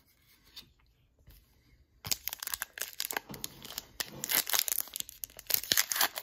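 A 2023 Upper Deck AEW trading card pack being torn open, its wrapper crinkling and crackling. The tearing starts about two seconds in and keeps on.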